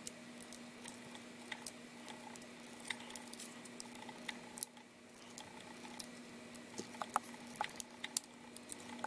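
Faint, irregular small clicks and scrapes of fingers handling and prying at a small camera's plastic inner case and thin metal frame, over a faint steady hum.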